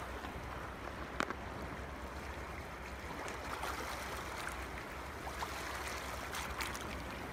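Faint rustling and light taps of cardstock being handled and pressed flat by hand, over a steady hiss, with one sharp click about a second in.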